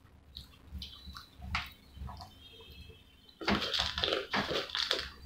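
French fries being eaten close to the microphone: chewing mouth sounds and the light clicks of fingers picking fries from a bowl, with a louder, denser stretch of crackling about three and a half seconds in.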